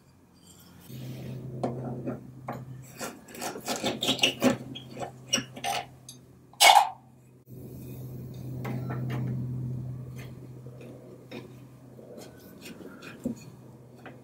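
A thin steel hand tool scraping and rubbing against wood in the loose arm joint of an antique wooden chair: a quick run of irregular rasping strokes, one short louder scrape about halfway, then sparser scrapes and clicks.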